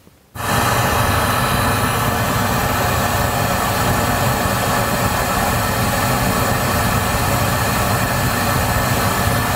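Steady test noise played loud through the Volvo's factory sound system for a real-time frequency-response measurement, switching on suddenly about half a second in. It is an even hiss covering lows to highs. Meanwhile the equalizer's 500 Hz band is being lowered.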